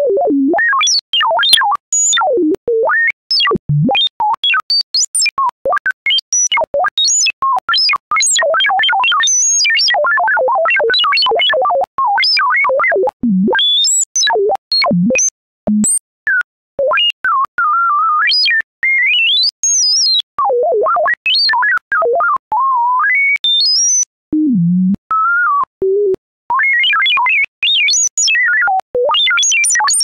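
A single synthesized sine tone chirping, warbling and sweeping rapidly up and down in pitch, broken into many short beeps and glides: R2-D2-style droid chatter made with the Chrome Music Lab Spectrogram's tone generator.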